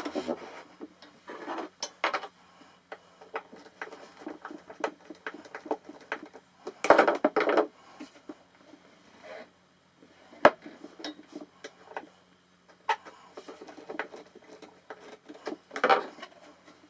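Small clicks, taps and scrapes of hand tools on metal hardware and wood: a hinge being screwed to a wooden tool chest with small slotted screws. A louder stretch of rubbing comes about seven seconds in.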